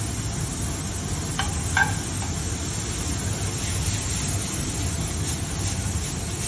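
Shaved steak sizzling steadily in a hot sauté pan. A utensil clinks or scrapes briefly twice, about a second and a half in.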